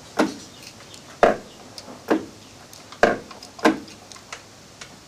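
Lathe's multi-tool turret plate being turned and set by hand, giving sharp metallic clunks roughly one a second as the tools rotate into position.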